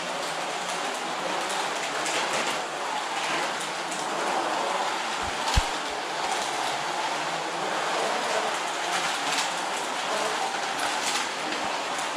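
1:32-scale Carrera Digital 132 slot cars lapping a plastic track: a steady whir of small electric motors and tyres with scattered light clicks, and a single thump about halfway through.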